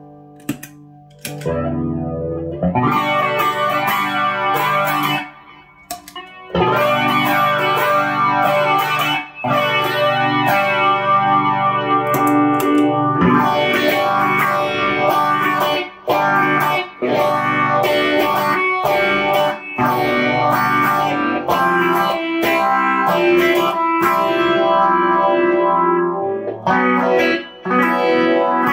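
Electric guitar playing chords and riffs through an overdrive pedal into a tube amp, with a distorted, driven tone; the playing breaks off briefly a few times.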